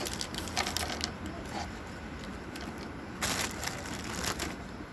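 Small engine parts being handled during assembly: scattered light clicks and knocks, with a short scrape about three seconds in.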